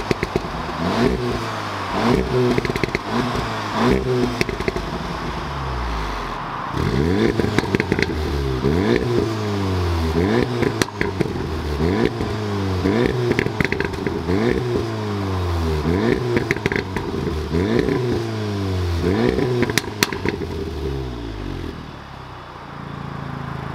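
VW Golf R's turbocharged 2.0-litre four-cylinder engine blipped repeatedly at standstill, quick revs rising and falling about once a second, with crackles on the overrun, settling to idle near the end. The first few seconds are through the stock exhaust with its resonator. After a cut, it is through the straight pipe of a resonator delete.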